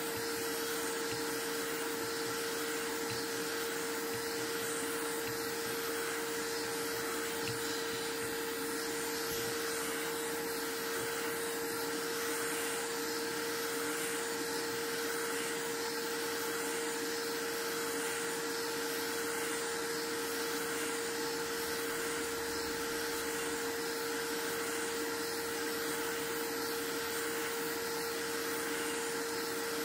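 Steady whir of a small motor blowing air, with a constant hum just under 500 Hz over an even hiss.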